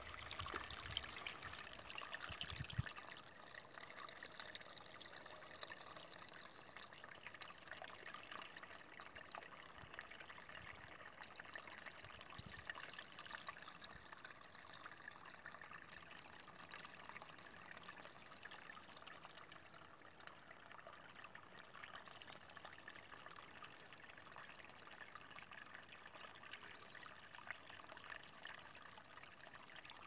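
A small stream of water trickling steadily and faintly, with low rumbling noise in the first three seconds.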